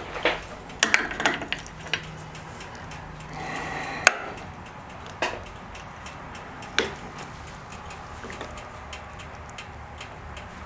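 Hands working a motorcycle's electrical wiring connector: scattered sharp clicks and light knocks, the sharpest about four seconds in.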